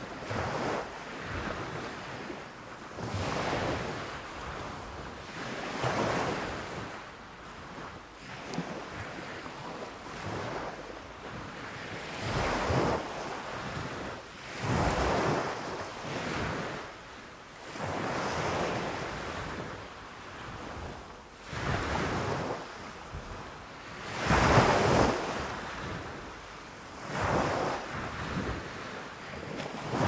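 Small waves breaking on a sandy beach and their foam washing up the sand, the noise of the surf swelling and ebbing every two to three seconds, loudest about four-fifths of the way through.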